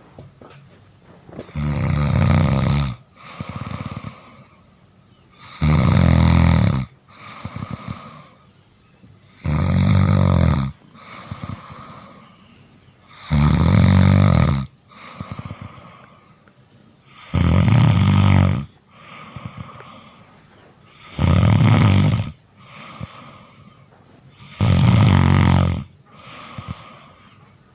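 Sleeping cat snoring: seven loud snores about four seconds apart, each lasting about a second, with a softer rasping breath between them.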